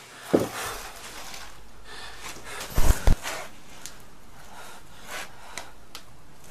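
A man breathing heavily in short gasps. A couple of dull bumps about three seconds in.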